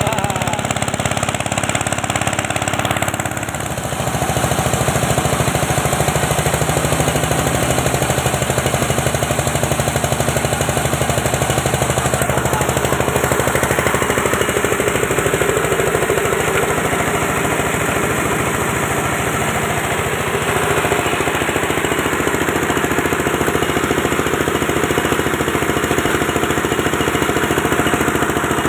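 The 8.5 hp diesel engine of a multi-purpose chopper-grinder running steadily under power, with a fast, even beat, and a brief dip in level about three seconds in.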